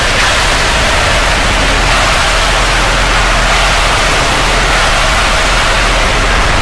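Very loud, harsh wall of distorted noise, steady and unchanging, filling everything from a deep rumble to a high hiss.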